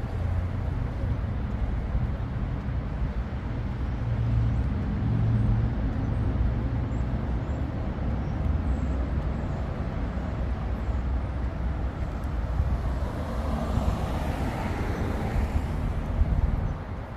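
City street traffic: a steady low rumble of passing vehicles, with one vehicle growing louder as it passes close by near the end.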